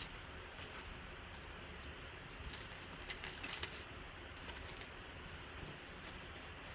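Faint handling of trading cards and pack wrappers: scattered short, soft scrapes and rustles over a steady low room hum.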